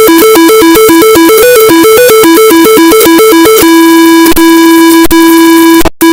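Synthesized emergency alert alarm for a tornado warning: two buzzy tones swap back and forth rapidly. A little over halfway in it switches to one steady held tone, cuts out for an instant, then the rapid two-tone warble starts again.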